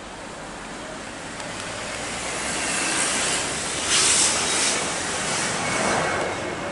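Twin jet engines of a Boeing 737 climbing out at takeoff power: a broad rushing noise that grows louder, loudest about four seconds in.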